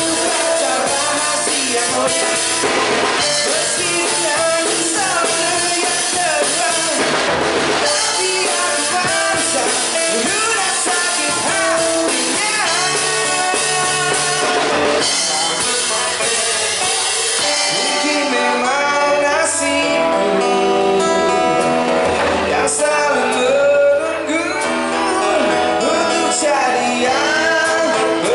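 Live band performance: a man sings into a microphone over acoustic guitar, electric bass and a drum kit with snare and cymbals.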